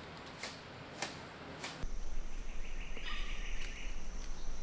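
Rainforest ambience: faint clicks for about the first two seconds, then an abrupt switch to a denser soundscape of a steady high insect-like drone, bird chirps and a low rumble.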